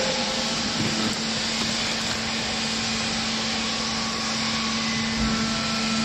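Steady mechanical hum with a constant low tone from a hydraulic baling press's motor and pump running.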